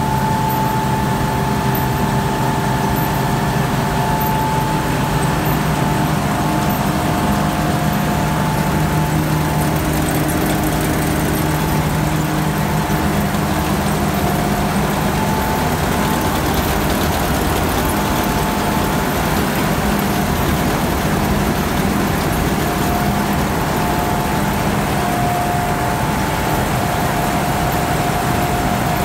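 Claas Lexion 760 combine harvester running at a steady speed: a continuous engine and machinery drone with a few steady whining tones over it.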